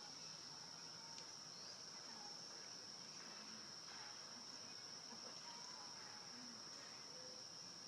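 Insects droning steadily on one even high pitch. A few faint short calls sound underneath.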